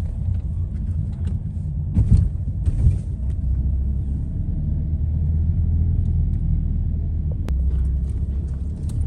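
Car on the move: a steady low engine and road rumble, with a couple of knocks about two and three seconds in.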